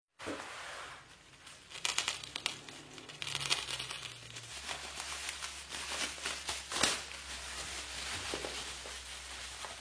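Plastic or paper packaging crinkling and rustling as it is handled, in irregular crackles with a few sharper snaps, over a faint steady low hum.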